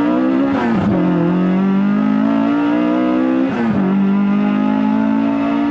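Honda K24A four-cylinder engine with a straight-pipe exhaust pulling under load: the engine note climbs, drops sharply with an upshift about a second in, climbs again, and drops with a second upshift just past halfway before rising again.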